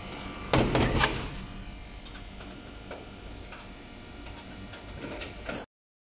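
A metal-framed door with a lever handle being opened: a loud clatter of the handle and latch about half a second in, followed by a few lighter clicks.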